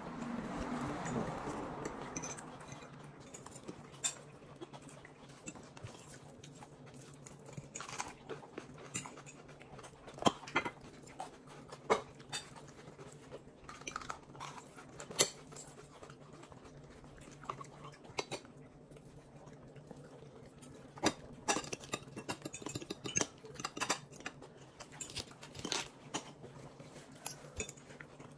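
Cutlery and dishes clinking now and then: scattered sharp clicks over a low steady hum.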